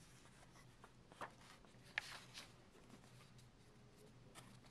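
Near silence with faint paper handling as the pages of a printed manual are turned: soft rustles and a few small clicks, the sharpest about two seconds in.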